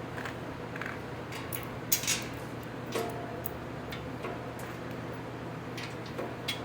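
Light clicks and clinks of bolts and metal chair parts being handled and fitted, with a few sharper knocks about two and three seconds in.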